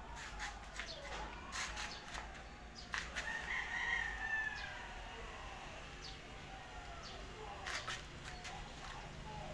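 A rooster crowing once in the background, about three seconds in, with a few sharp clicks around it.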